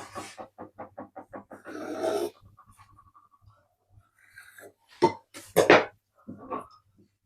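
A dog panting rapidly, about five pants a second, for the first couple of seconds, then a brief thin whine. About five seconds in come two short, louder bursts of noise.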